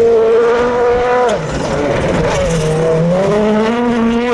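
Rally car engine at high revs. It drops sharply about a second in as the driver lifts or shifts, then climbs steadily again under throttle.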